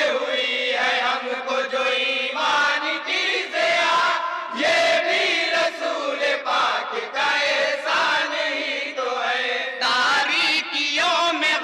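A group of men chanting a naat together in unison, long melodic lines sung with short breaks between phrases.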